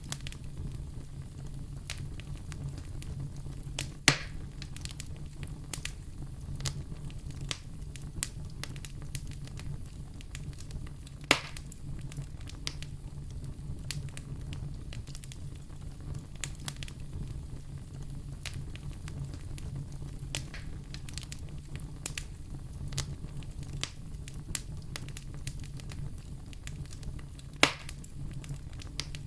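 Wood fire in a fireplace crackling over a steady low rumble, with many small irregular pops and three louder sharp snaps spread through.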